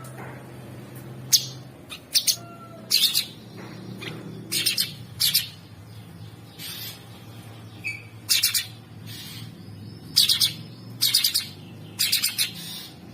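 Cucak sungkok calling: a series of short, harsh, scratchy calls, some single and some in quick runs of two or three, over a steady low hum.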